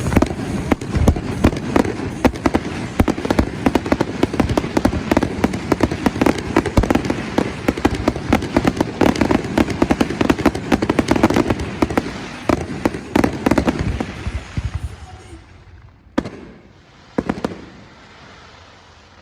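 Fireworks display: a rapid barrage of bangs and crackling bursts for about fifteen seconds, then dying away, with two last single bangs near the end.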